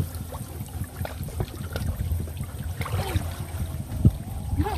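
Shallow muddy water sloshing and trickling as hands grope through the mud along a canal bank, with small splashes and one sharper knock a little after four seconds in.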